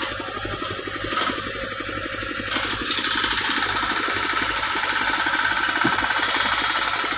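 An engine running steadily with a fast, even knocking beat; about three seconds in a loud hiss joins it and carries on.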